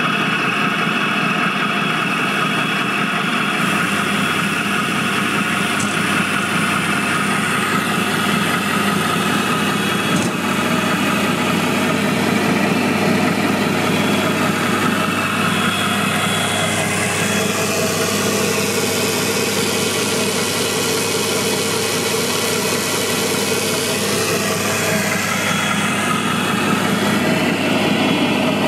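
Self-built 1/8-scale RC airport crash tender model running steadily while its roof foam-and-water monitor sprays a long jet of water. The sound is a steady motor hum over the hiss of the spray, and a lower hum joins about three and a half seconds in.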